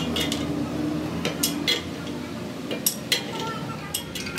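Pipe wrench working the threaded rod of a steel tool bolted to a truck wheel hub: irregular sharp metal clinks and scrapes as the wrench bites and slips on the rod, over a steady low hum.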